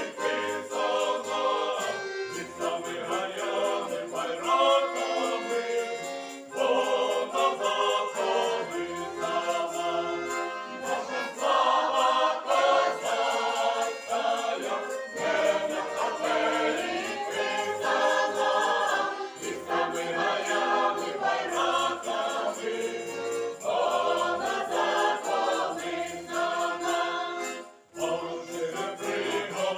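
Folk choir singing in several voices, accompanied by bayan (button accordion) and violin, with a short break between phrases near the end.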